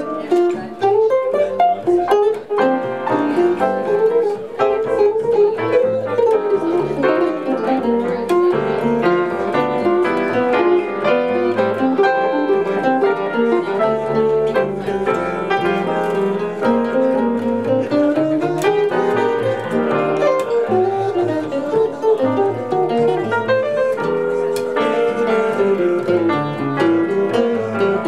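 Jazz trio of archtop guitar, piano and plucked upright bass playing a flowing tune, with the guitar carrying a busy line of quick notes over the bass.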